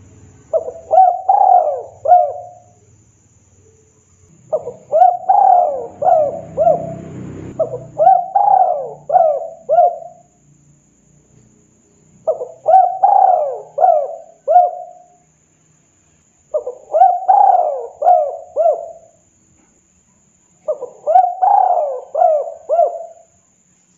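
Spotted dove (tekukur) cooing: six phrases of several quick coos each, repeated every few seconds.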